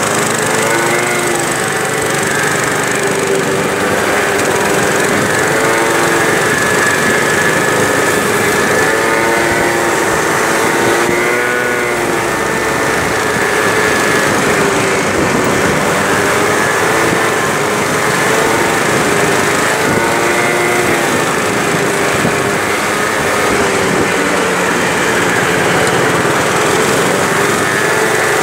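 Peugeot Jet C-Tech 50cc scooter's two-stroke engine running under way, its note rising and falling again and again as the throttle is opened and eased in slow traffic, with road and wind noise on the microphone.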